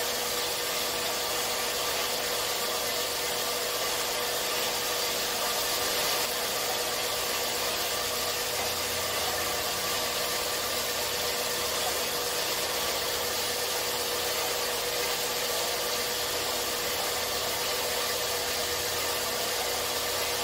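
4x6 horizontal metal-cutting bandsaw running steadily, its 18-teeth-per-inch blade cutting through a bundle of 11-gauge square steel tubing: an even hiss of the blade over the motor's hum, with one steady tone.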